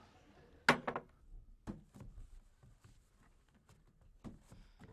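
Tableware at a meal: a sharp knock of a plate set down on the table about two-thirds of a second in, then a few lighter clinks of knives and forks against plates.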